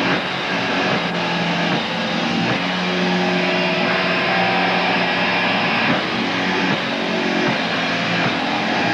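Live rock band playing an instrumental passage with electric guitar.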